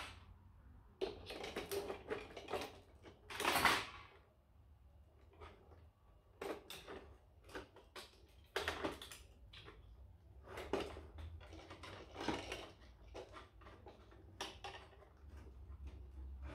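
Plastic and metal parts of a photocopier unit being handled and pried apart: irregular clicks, knocks and short rattling clatters, the loudest about three and a half seconds in.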